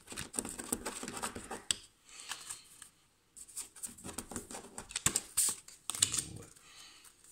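Tarot cards being gathered up and handled: rustling of card stock with many light clicks and taps, in three spells with short pauses between.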